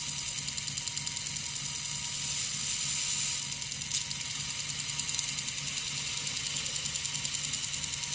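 Small bench disc sander running steadily, with a small metal winding lever held against the abrasive disc and being ground. The grinding hiss swells for about a second in the middle, and there is one sharp click about four seconds in.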